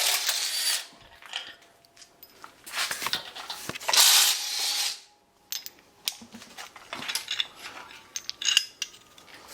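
Socket ratchet clicking in two bursts on the engine's bolts, then scattered clinks of metal bolts and tools being handled.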